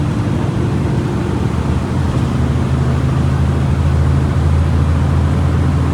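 Volkswagen Volksbus 17.230 EOD bus diesel engine running with a steady low drone, growing a little louder about midway.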